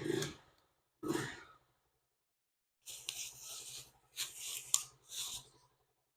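Short bursts of rubbing and scraping as motorcycle mirror parts are handled, three separate spells broken by silence. A faint steady low hum runs under the last, longest spell.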